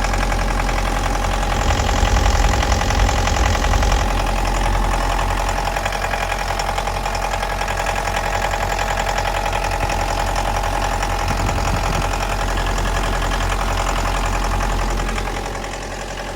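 Mitsubishi L200's 2.5-litre diesel engine idling with a clattering knock, briefly louder about two seconds in. The knock is the engine fault the inspection is about.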